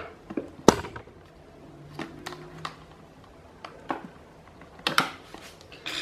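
Light clicks and taps of a fan's plastic rear motor cap being handled and pressed against the motor housing. One sharp click comes about two-thirds of a second in, with fainter ticks after it and two more clicks near the end.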